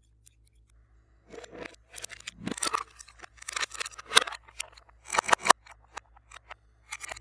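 Slime being squeezed and worked, giving irregular sharp clicks, crackles and pops that start about a second in.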